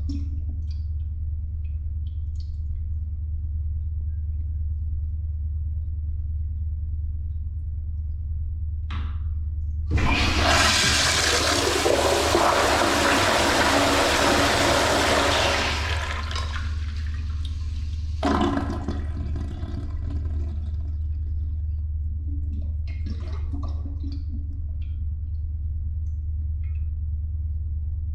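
Toilet flushing: a loud rush of water starts about ten seconds in, runs for about six seconds and tapers off, then a shorter surge of water comes suddenly a couple of seconds later and fades. A steady low hum runs underneath.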